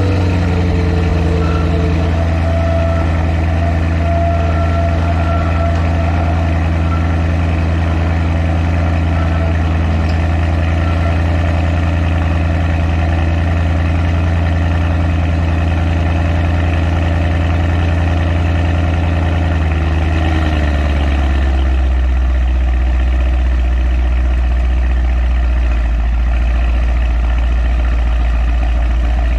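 Mercedes-AMG M177 4.0-litre twin-turbo V8 idling through an exhaust with upgraded downpipes and the rear flaps fully open. The idle is steady and somewhat raised at first. About twenty seconds in it drops to a lower, deeper idle, as the engine settles after start-up.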